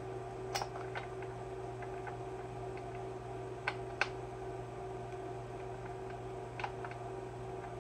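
Scattered light, sharp clicks of a hand tool against metal parts as a fastener is worked on a chainsaw's top end, five or so spread irregularly with a pair near the middle. A steady electrical hum runs underneath.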